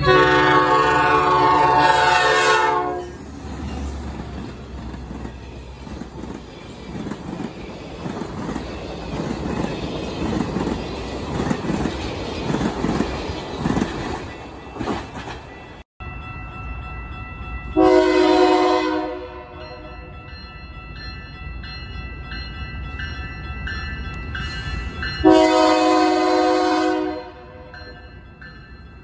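A diesel locomotive's multi-chime air horn sounds for about three seconds, then a train rumbles and clatters past over the crossing. After a sudden cut, a grade-crossing bell rings steadily while a second approaching locomotive blows its horn in two blasts, a short one and then a longer one near the end.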